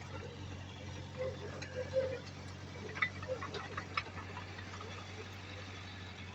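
Heavy-machinery diesel engine running low and steady, with a cluster of light ticks and clinks about three to four seconds in.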